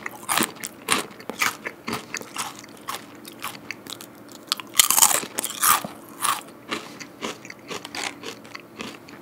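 Close-miked crunching and chewing of a crisp fried snack, in irregular sharp crackles, with a louder run of crunches about five seconds in as a fresh piece is bitten.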